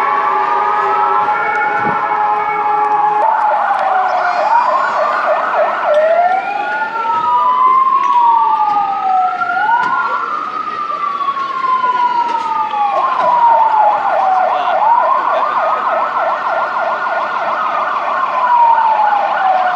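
Several fire engine sirens wailing at once, their slow rising and falling wails overlapping and crossing, with a fast pulsing siren tone among them.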